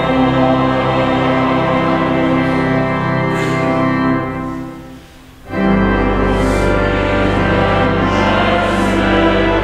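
Choir, organ and strings performing a hymn: a held chord dies away about four seconds in, leaving a brief pause in the church's reverberation, then the organ and instruments come back in with a full sustained chord over a deep bass.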